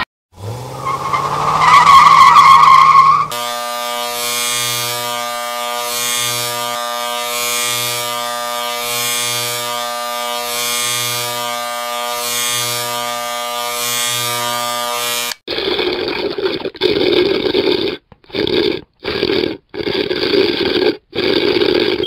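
Three stock sound effects in a row. First a sawmill saw spins up with a rising pitch into a loud steady whine for about three seconds. Then an electric shaver buzzes steadily for about twelve seconds with a pulsing hum, and the last six seconds hold about six short bursts of sipping through a straw.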